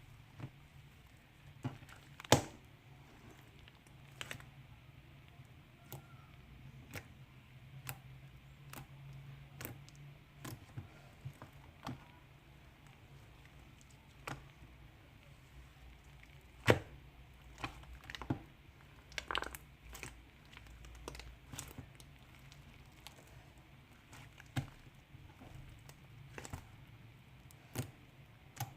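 Slime being pressed and stretched by hand, giving irregular sharp clicks and pops, a few much louder than the rest, over faint squishing.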